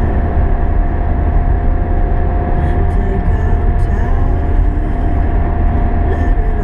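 Steady road and engine noise of a moving car heard from inside the cabin, with a heavy low rumble and a thin steady tone above it.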